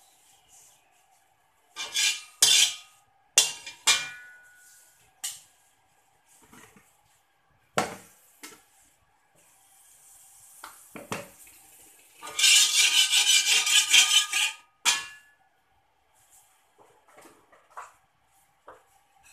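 Slotted metal spatula knocking and scraping in an empty metal wok. There are several ringing clanks in the first few seconds and a couple of duller knocks, then about two and a half seconds of loud continuous scraping a little past the middle.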